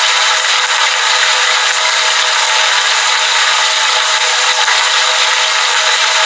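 Heavy rain pouring down steadily outside a window, an even, unbroken rush of dense rainfall.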